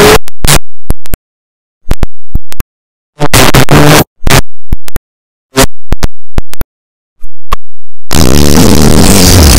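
Harsh, heavily distorted, clipped noise that cuts in and out in abrupt bursts with dead silence between them, then a longer loud burst near the end.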